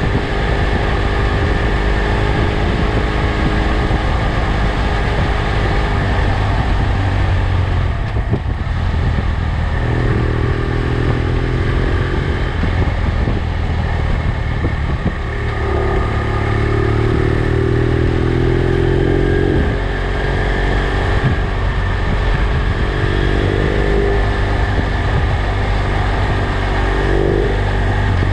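BMW F800GS parallel-twin motorcycle engine running on the move, with steady wind noise. Its pitch rises several times as the bike accelerates, with short dips in between.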